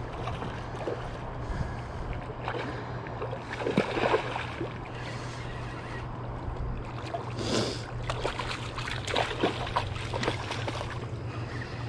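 A hooked sucker splashing at the surface as it is reeled in to the bank, in several short splashes over a steady low rumble.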